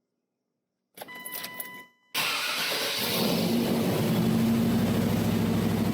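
A short chime tone from the dash, then the 1995 Chevy Tahoe's engine is started about two seconds in: a brief crank, it catches, and it runs steadily at idle.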